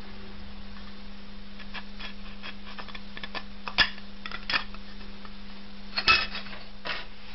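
Thin aluminium tealight cup clicking and crinkling in the fingers as the wax candle is pushed out of it, with a few sharper clicks about four and six seconds in. A steady low hum runs underneath.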